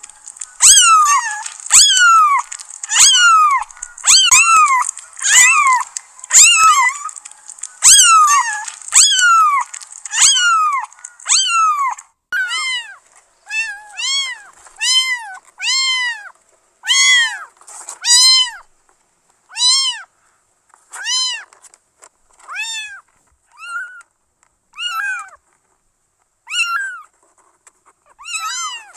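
Kittens meowing over and over, high-pitched, about one meow a second. For the first twelve seconds the meows fall in pitch over a light hiss; after that they are quieter, rise and fall in pitch, and come with short pauses between them.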